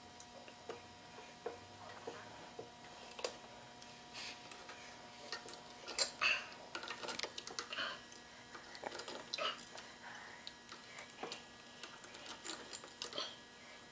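Light irregular metal clicks and scrapes of steel lock wire and pliers being worked through the drilled heads of the connecting-rod bolts in an Ingersoll Rand 242 compressor crankcase, lock-wiring the bolts; the clicks come thicker after the first few seconds.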